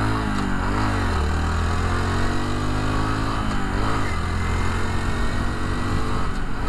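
Honda Trail 125 motorcycle's single-cylinder engine running under way, its pitch rising and dropping back about a second in and again near four seconds.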